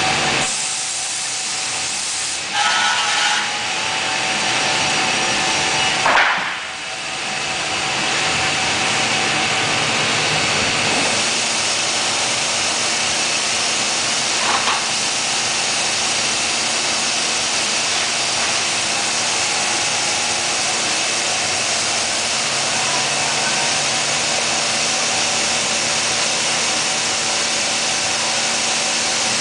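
Biesse Rover 30 CNC machining center running, its router cutting a wood panel with a steady high-pitched hiss and whine. Louder spells come about three seconds in and near the middle, and a brief falling whine comes about six seconds in.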